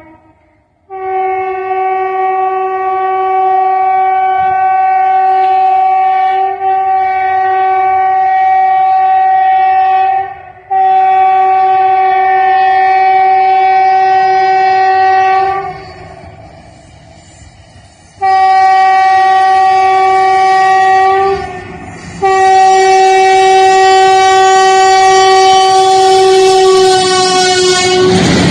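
WAP-4 electric locomotive's horn sounding a series of long, loud blasts with short breaks between them, the longest lasting about ten seconds. Near the end the rush of the train at speed swells in, and the horn's pitch dips slightly as it passes.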